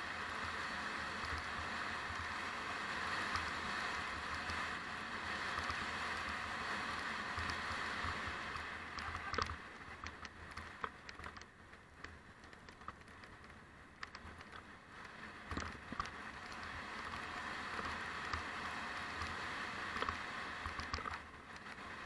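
Mountain bike rolling fast down a loose gravel track: a steady rushing noise with tyres crunching on stones and sharp rattles and knocks from the bike over bumps. The rushing is loudest for the first nine seconds or so, then eases off and grows uneven.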